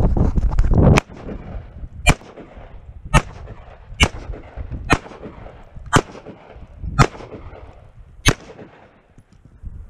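AR-15-style carbine fired in slow, single aimed shots, about one a second, seven in a row. Before them there is a second of heavy wind and movement rumble on the head-mounted microphone that cuts off abruptly.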